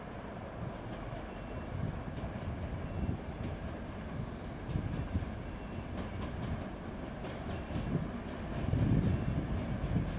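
TEP70 passenger diesel locomotive with its V16 diesel engine rumbling as it rolls slowly in, hauling coaches, with irregular low thumps of wheels over the track; the rumble swells louder near the end as it draws close.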